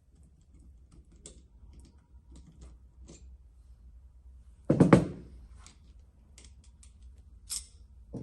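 Small metal clicks and taps of shearing-machine downtube parts being handled after the cog-driven eye is unscrewed from the elbow, with one loud knock about five seconds in.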